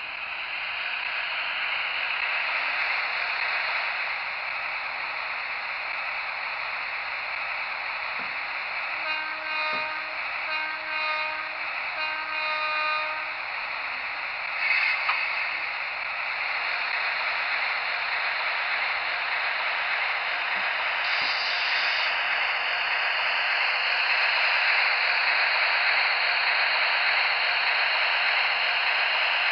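Electrotren model of a Renfe series 251 electric locomotive running on a model railway, with a steady hissing running noise. Its horn sounds three short blasts about a third of the way in, a brief loud burst follows a couple of seconds later, and the running noise grows louder near the end as the locomotive comes by.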